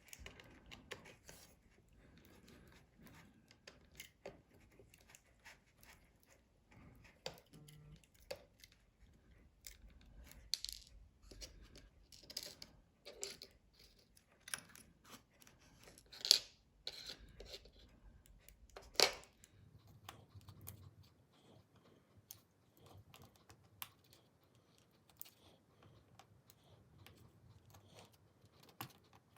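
Small repair tools clicking and tapping on the opened iPhone 5S as its parts are worked loose: scattered faint clicks, with two sharper ones a few seconds apart past the middle.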